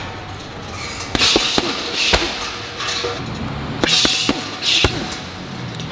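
Gloved punches and shin kicks thudding on a long leather Muay Thai heavy bag, a jab, cross, left hook and right kick combination repeated in two quick runs of strikes, with short hisses alongside.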